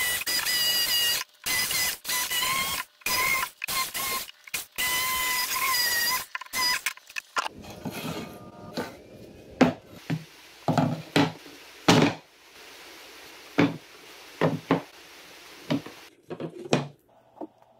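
DeWalt jigsaw cutting a pine 2x8 board: a loud motor whine with blade chatter, stopping and starting several times. After that come a series of sharp wooden knocks as cut pine pieces are handled and set down on a workbench.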